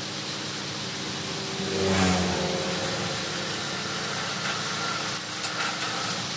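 Bench drill press motor switched on, spinning up about two seconds in and then running steadily while the bit is fed down into a metal exhaust silencer tube to drill a rivet hole. A few sharp clicks and a short high squeal around five seconds in as the bit cuts the metal.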